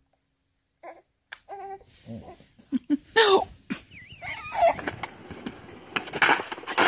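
A baby spits up milk onto a man's face, followed by gasping, crying-like voices and some laughter.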